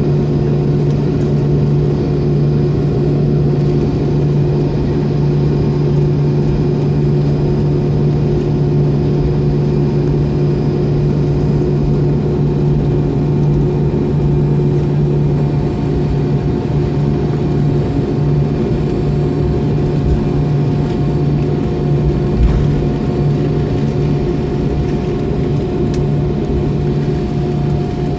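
An MD-90's tail-mounted IAE V2500 turbofan engines running steadily at idle, heard from inside the rear cabin as a loud, even drone with a steady hum.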